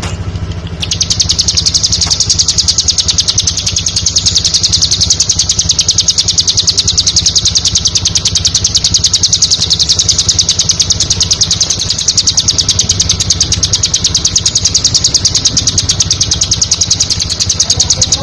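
Bar-winged prinia (ciblek) calling a long, rapid, even string of high chirps that starts about a second in and stops near the end, over a low steady hum.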